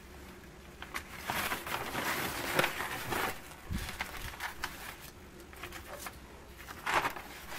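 Old, dry newsprint rustling and crackling as a newspaper is unfolded and its pages turned, in a long rustle in the first half and a short one near the end.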